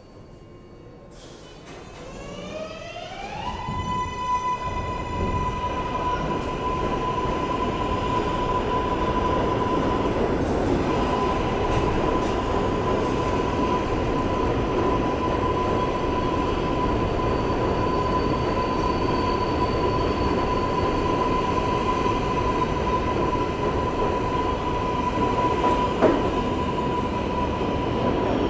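New York City subway 7 train pulling out of a station. Its electric propulsion gives a rising whine that levels off into a steady high tone within about four seconds, over the loud rumble of the cars running past. A brief click comes near the end.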